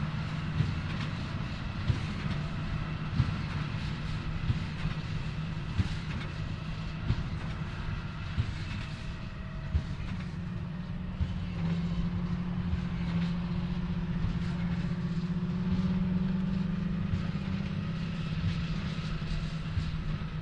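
John Deere 8530 tractor's six-cylinder diesel running steadily under load while pulling a Krone BigPack large square baler, with a regular thump about every 1.3 seconds from the baler's plunger stroke. The engine's pitch rises a little about halfway through.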